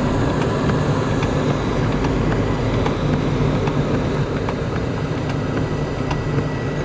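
Steady running noise of a car heard from inside the cabin as it drives along a wet road in heavy rain: a constant engine and tyre rumble with a hiss of spray and rain, and faint scattered ticks.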